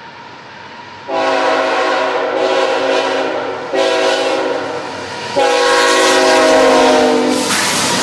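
Diesel freight locomotive's air horn blowing a multi-tone chord in three long blasts, starting about a second in. Near the end the horn stops and the loud rush of the locomotives passing close takes over.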